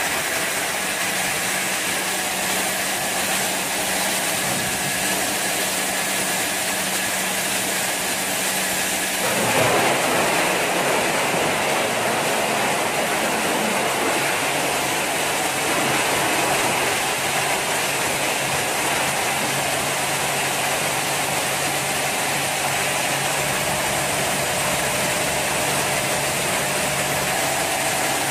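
TLP1083 industrial crusher running steadily with a constant hum while crushing washing-machine shells. About nine seconds in the sound shifts and briefly gets louder.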